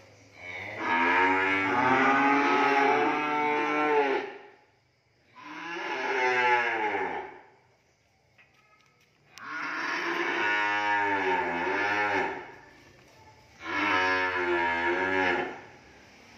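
Cattle mooing: four long, loud calls, each lasting two to four seconds, with short pauses between them.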